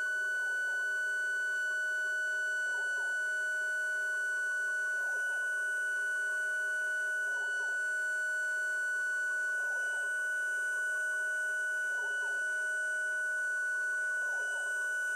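Home-built CNC milling machine cutting a nylon part with an end mill: the spindle runs with a steady high-pitched whine over fainter steady tones. The lower tones waver briefly about every two and a half seconds as the cutting pass repeats.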